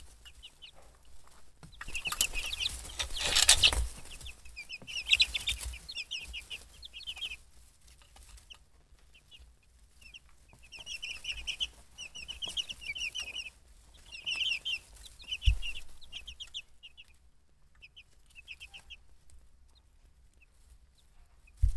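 Young chicks peeping: short, quick, high chirps coming in runs and pauses. A louder rustling burst comes about two to four seconds in, and a soft thump near the middle.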